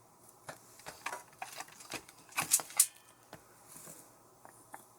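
Hard plastic toy parts clicking and knocking as they are handled: raise buckles being taken off and fitted to a DX Desire Driver belt toy. The clicks come irregularly, with a quick cluster of the loudest ones about two and a half seconds in.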